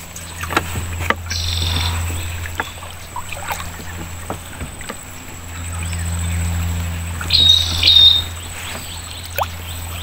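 A bird calls in short bright trills, once early and again louder near the end, over a steady low hum. Scattered knocks and splashes come from a wooden boat as a wire trap is hauled over the side and a paddle is worked.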